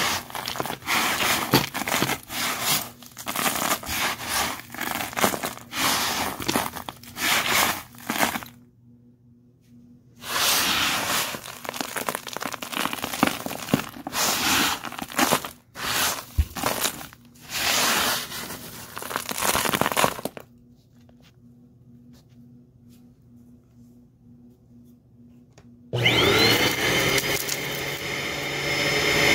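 A hand scrunching and stirring a pile of dry dirt, lint, confetti, plastic gems and coins: crunching and crinkling in quick bursts, with two pauses. Near the end a Eureka Airspeed Compact vacuum cleaner switches on, its motor whine rising and settling to a steady pitch.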